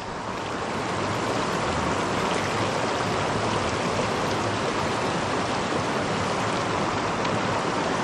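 Creek water rushing steadily through a shallow riffle.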